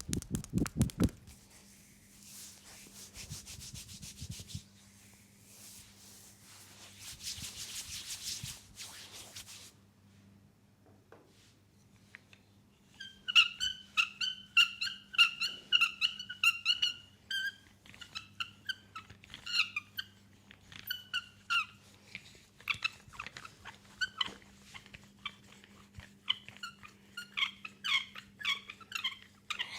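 Hands massaging a leg slick with hot oil: quick rhythmic strokes at the start, then soft rubbing, then about halfway through a long run of short, high, wet squeaks and clicks from oily skin.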